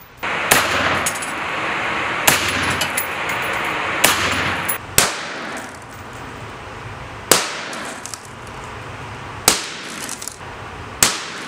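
M-4 carbine firing 5.56 mm rounds: about seven single shots, spaced one to two seconds apart, each sharp crack trailing off in reverberation from the range's block walls.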